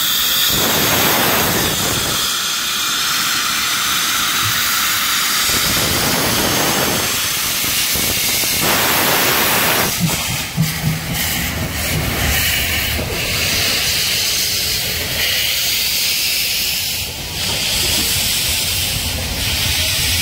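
Train passing at speed: a steady, loud rushing noise of wheels on rails and moving air, its character changing about halfway through.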